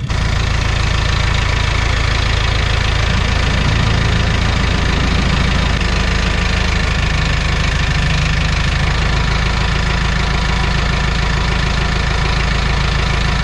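Farm tractor engine running steadily close by while the front-end loader bucket presses down on the top of a wooden fence post to push it deeper into the ground.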